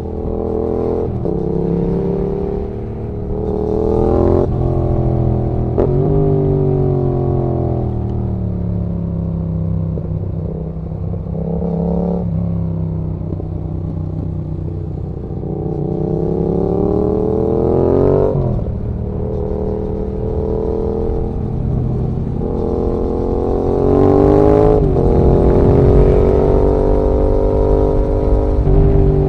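2019 Yamaha XSR700's 689 cc parallel-twin engine pulling and revving, its note climbing and falling repeatedly, broken several times by sharp gear changes that drop the pitch.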